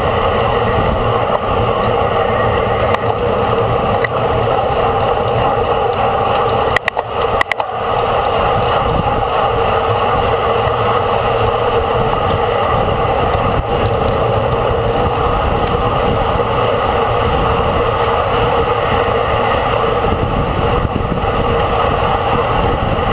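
Steady rushing noise of travel at racing speed, wind over the microphone and road noise, with a brief dropout and a couple of clicks about seven seconds in.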